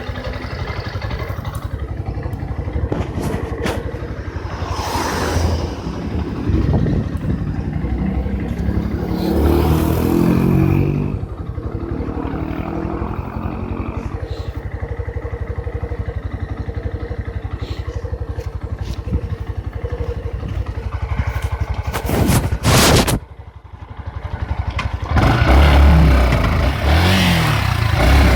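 Yamaha Fazer 150 motorcycle's single-cylinder engine running, revving up and down at times, with a thin steady whistle over it in places. The whistle is the kind of strange noise the owner reports on this nearly new bike, for which the dealer found no fault. A brief loud burst, then a dip in sound, comes a few seconds before the end.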